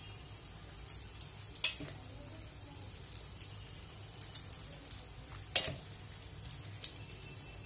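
Chana dal pakoras frying in a pan of oil: a soft, steady sizzle with many small pops. A few sharp clicks and knocks come through over it, the loudest about five and a half seconds in, from the knife and tomato pieces landing in a steel bowl.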